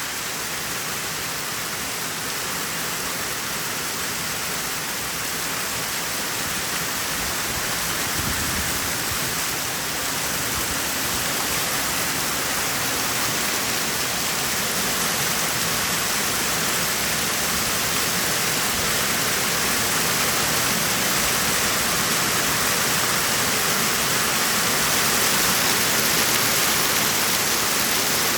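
Hail and heavy rain pelting down during a thunderstorm, a dense, steady hiss that grows gradually louder.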